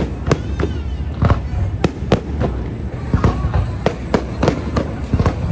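Fireworks going off in quick, irregular succession: sharp bangs and crackles, two or three a second, over a steady low rumble.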